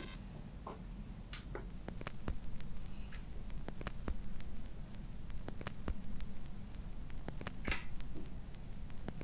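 Turntable with its stylus on a vinyl record: scattered clicks and pops of surface noise over a low steady hum.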